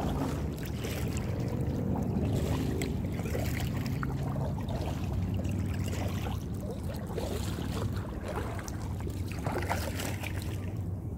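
Kayak paddle strokes dipping and splashing in the lake water every second or two, over a steady low rumble of wind on the microphone.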